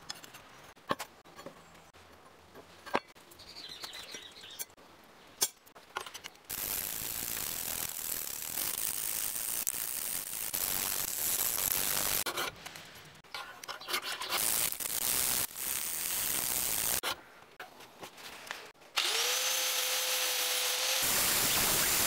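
A few light clicks and taps from handling the steel blade, then stretches of steady grinding noise from a power tool working the 5160 leaf-spring steel. Near the end an angle grinder spins up with a rising whine that levels off, then bites into the steel with a loud, steady grinding.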